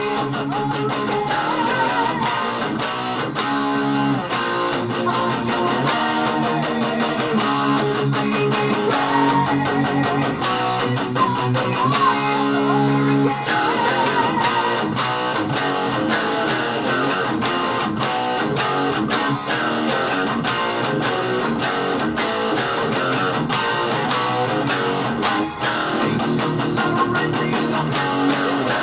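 Electric guitar playing a heavy-metal part, with sustained chords and held lead notes shaken with vibrato, over a full band track with drums.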